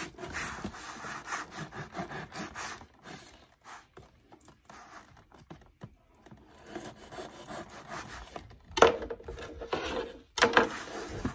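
Knife blade sawing and scraping through the packing tape on a cardboard box in short repeated strokes, with a quieter pause midway. Near the end come two sharp knocks about a second and a half apart, the loudest sounds.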